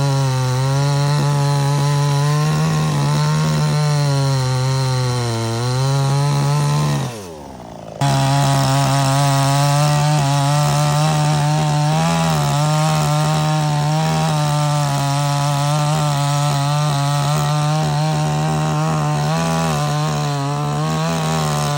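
Two-stroke petrol chainsaw running at high revs with a steady whine. Its pitch dips briefly about five seconds in, then falls away and quietens around seven seconds. It comes back suddenly at full speed a second later and runs steadily on.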